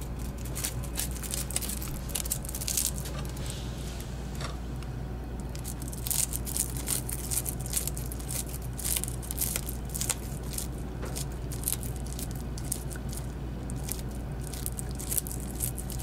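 Bearded dragon chewing a cicada: crisp, irregular crunches and clicks of the insect's shell, coming in flurries, over a steady low hum.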